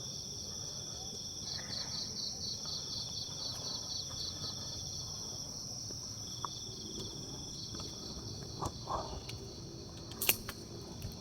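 Night insects, crickets chirping: a steady high trill with runs of evenly pulsed chirps that stop and start. A sharp click comes about ten seconds in.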